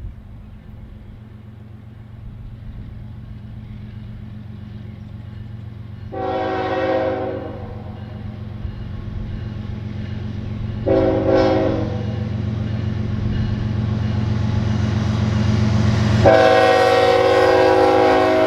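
Diesel freight locomotive of a CN intermodal train drawing closer, its low engine rumble growing louder, sounding its air horn three times: a blast about six seconds in, a short one around eleven seconds, and a long one near the end.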